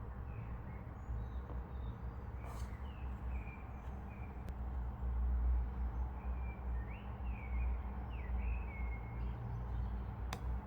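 Faint short bird chirps over a low steady rumble, with a few soft clicks.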